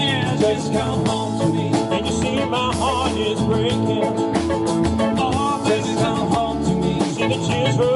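Live country band playing at full volume through a PA: strummed acoustic guitar, electric guitar and drum kit keeping a steady beat.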